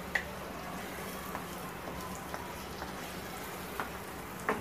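A wooden spatula stirring mutton pieces through thin, watery curry in a nonstick frying pan, the gravy simmering softly, with a few faint knocks of the spatula against the pan.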